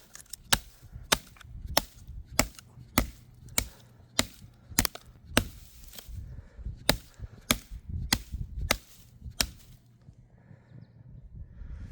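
Cold Steel Mayhem folding knife chopping wood: about fifteen sharp chops, a little under two a second, with a short pause past the middle, stopping about nine and a half seconds in.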